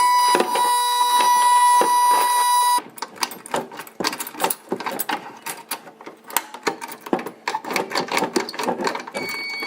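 STI Stopper II pull-station cover's built-in warning horn sounding a loud, steady high tone, cut off abruptly about three seconds in. Several seconds of rapid, irregular clicking and rattling from the device being handled follow, and another steady alarm tone starts near the end.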